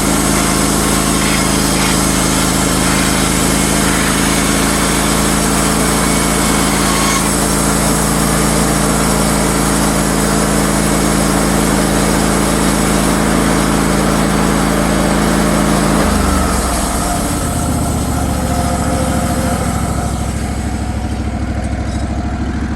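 Wood-Mizer LT15 Wide sawmill running steadily as it saws barn wood, its small engine making a steady drone. About sixteen seconds in, the engine note drops and slows.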